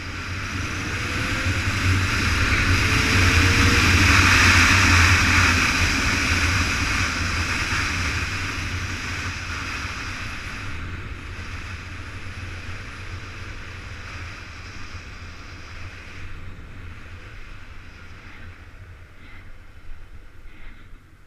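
Motorcycle engine running under the road, with wind rushing over the microphone. It swells to its loudest about four seconds in, then slowly fades.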